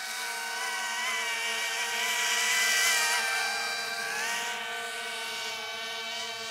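Brushless drone motors and propellers of a flying RC drift car (a quadcopter with a rear pusher thruster) whining with several steady, slightly wavering tones. The sound grows to its loudest about three seconds in, then eases off as the craft passes.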